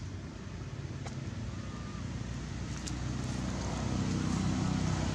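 Low rumble of a motor vehicle's engine running, growing louder about three seconds in, with a couple of faint clicks.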